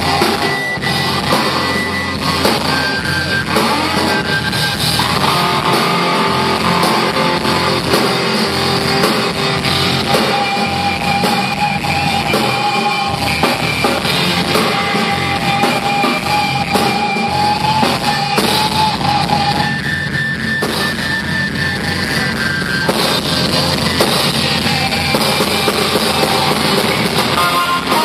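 Live band playing loud rock music: electric guitar, bass guitar and drum kit, with long held lead notes over the beat.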